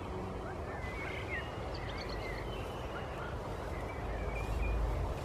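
Small birds chirping in short, quick phrases in the background, over a low rumble of wind on the microphone that grows stronger about four seconds in.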